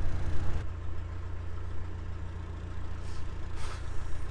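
Narrowboat's diesel engine running steadily at low revs, a low even drone.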